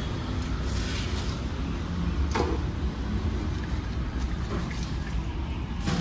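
Steady low rumble with a few sharp knocks or clatters, about a second in, at about two and a half seconds and near the end.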